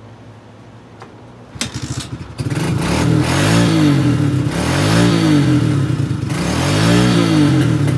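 Kawasaki KLX110 pit bike's single-cylinder four-stroke engine picking up about a second and a half in, then revved up and falling back three times. The exhaust is misfiring, which the rider puts down to the carburetor.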